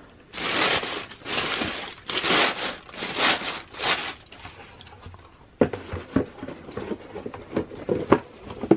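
Shoebox tissue paper rustling and crinkling in about five loud bursts as a hand presses it down into the cardboard box. From about halfway through it gives way to a run of light knocks and taps as the cardboard box is handled.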